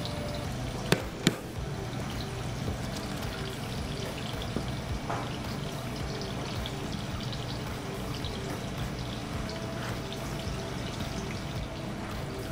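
Steady rushing, water-like background noise of a commercial kitchen, with two sharp knocks about a second in.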